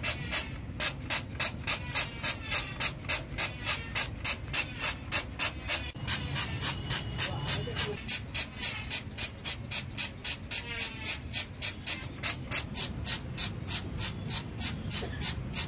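Hand trigger spray bottle pumped rapidly and steadily, about three short hissing squirts a second, spraying liquid onto an emulsion-coated screen-printing frame.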